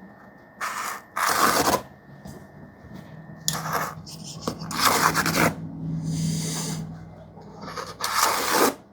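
A freshly sharpened knife edge drawn through something in several short rasping strokes, each up to about a second long, as its sharpness is tested.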